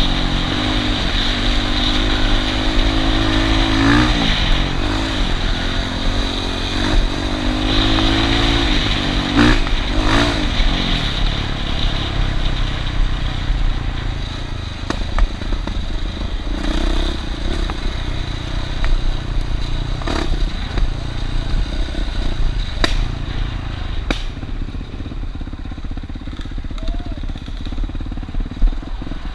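Small off-road vehicle engines revving and running. The pitch rises and falls several times in the first ten seconds or so, then settles steadier and a little quieter, with scattered clatter.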